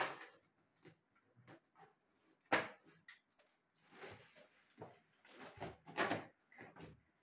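Irregular knocks, bumps and rustles of things being handled, with a sharp knock about two and a half seconds in and another near six seconds.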